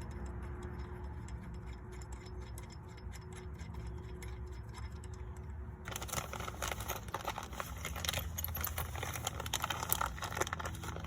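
Small metal hardware clinking and rattling while the steering hub is being fitted, with faint ticking in the first half. About six seconds in the clinking gets suddenly louder and busier.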